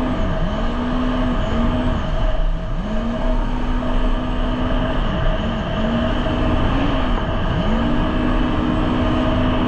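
Jet ski engine running under throttle, its pitch sagging and climbing back several times as the throttle is eased and opened again, over a steady rushing noise.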